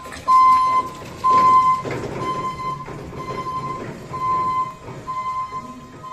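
Crown electric stand-up reach truck's warning beeper sounding a steady tone in repeated beeps, about one a second, while the truck is moving. A low rumbling noise runs underneath, strongest about one to two and a half seconds in.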